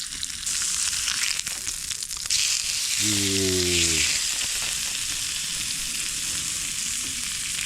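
Meat sizzling steadily on a hot pan or plate over a campfire. It sizzles a little louder from about two seconds in. A short low vocal sound with a falling pitch, a second long, comes about three seconds in.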